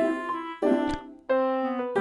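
Background music: a light keyboard tune of separate notes, four in a row, each starting sharply and fading.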